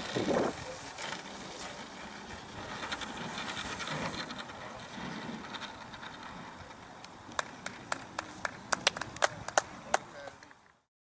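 Outdoor background noise with faint, distant voices and no engine running. In the last few seconds come about a dozen sharp, irregular clicks, then the sound cuts off suddenly.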